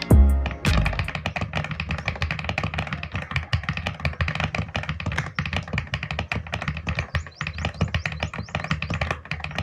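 Fast, continuous typing on an Aula S75 Pro mechanical keyboard, many keystrokes a second. A musical intro cuts off just before the typing begins, about a second in.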